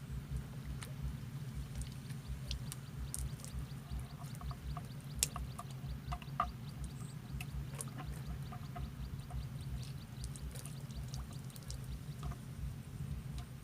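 Soft trickling and pouring of water over a steady low rumble, with scattered light clicks and a run of fast, faint high ticks in the middle.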